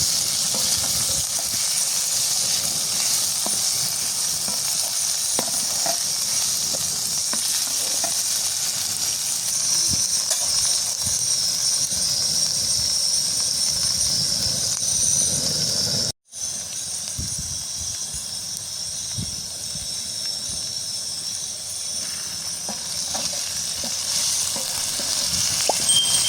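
Food sizzling in a frying pan, a steady hiss with small scattered ticks. It cuts out abruptly for a split second about sixteen seconds in, then carries on slightly quieter.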